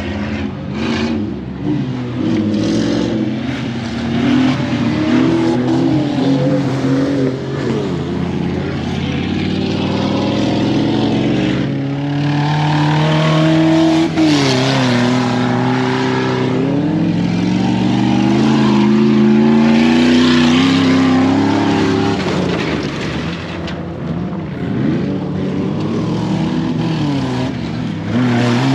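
Off-road trucks' engines running hard, revving up and down repeatedly, with more than one engine at once at times.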